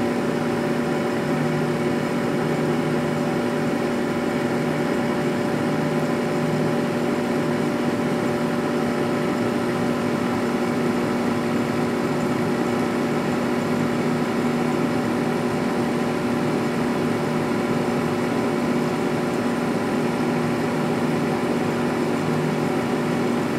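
Window air conditioner running on high cool: a steady hum with several steady tones over an even rush of air.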